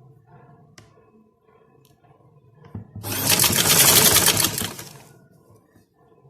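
Sewing machine stitching in one fast, steady run of about two seconds, starting about three seconds in, after a stretch of faint handling sounds.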